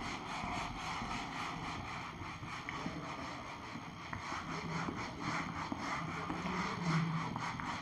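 Whiteboard duster rubbing back and forth over the board's surface, a steady scrubbing as the writing is erased.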